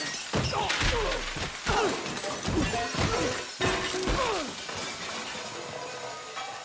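Film sound effects of a kitchen being wrecked. Crockery and glass shatter and metal pots and pans crash to a tiled floor in a rapid string of impacts, with ringing metal tones that slide downward in pitch. The crashes thin out over the last couple of seconds.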